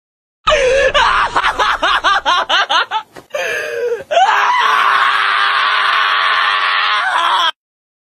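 High-pitched screaming: a wavering cry that rises and falls about four times a second for some two and a half seconds. After a short break comes a long steady shriek of about three seconds that cuts off suddenly.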